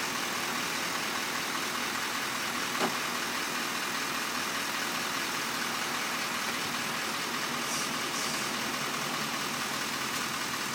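A vehicle engine idling steadily, with a single short click about three seconds in.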